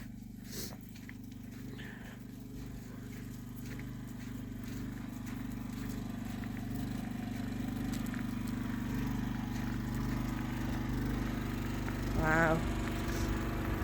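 A steady, low engine hum that grows gradually louder.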